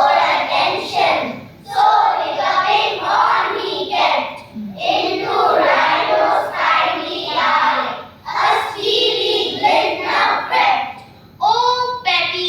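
A group of children reciting a poem in unison, in rhythmic spoken phrases of a second or two each, moving into sung notes near the end.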